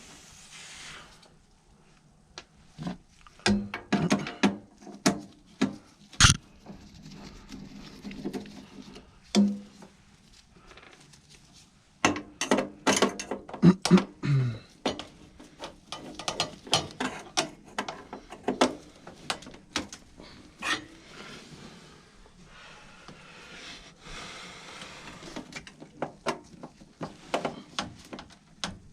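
Irregular clicks, knocks and metallic clatter of hand tools and furnace parts, including a nut driver on screws, as a furnace draft inducer motor is being removed. The clicks come in clusters, busiest a few seconds in and again from about twelve seconds on.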